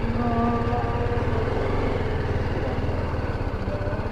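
BMW G 310 GS motorcycle's single-cylinder engine running steadily, with a fast even pulse.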